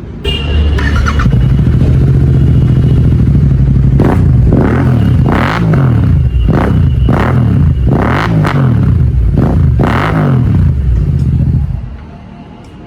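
Royal Enfield Continental GT 650 parallel-twin engine with an aftermarket slip-on exhaust. It runs at idle, then is blipped in about six quick revs that each rise and fall back, before settling and falling away near the end.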